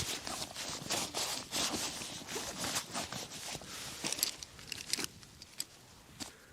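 Rustling and scraping of camping gear being handled and packed away, with quick zip-like strokes and a sharp click at the start.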